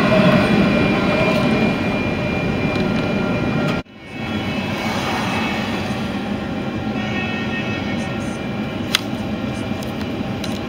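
Freight train of double-stack container well cars rolling past a grade crossing, a steady rumble of wheels heard from inside a car. About four seconds in it cuts off abruptly and a steadier, duller rumble follows, with one sharp click near the end.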